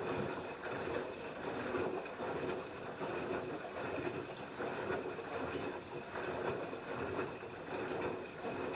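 LG F10B8QD1 front-loading washing machine with its direct-drive drum tumbling the wash: water and laundry slosh in irregular surges about once a second over a faint steady hum.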